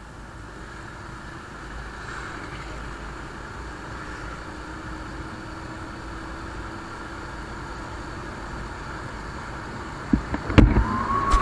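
Single-cylinder Bajaj Pulsar motorcycle riding along a wet road: steady wind and road noise, with the engine's faint note slowly rising as it speeds up. Near the end come several loud knocks and a high tone that starts and slowly climbs.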